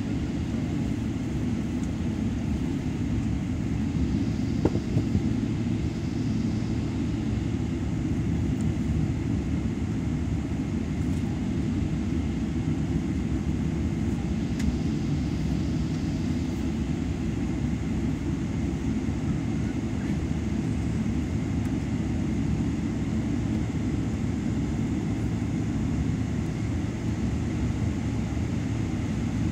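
Cabin noise of a Boeing 777-300ER on the ground: a steady low rumble from its GE90 engines at low thrust, heard through the fuselage, with one small click about five seconds in.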